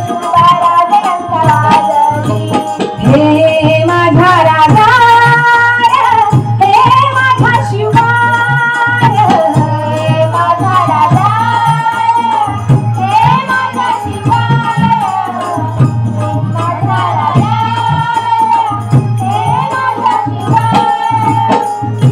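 Women singing a Marathi devotional bhajan, a lead voice with chorus, over a steady pakhawaj drum rhythm and jingling percussion keeping time.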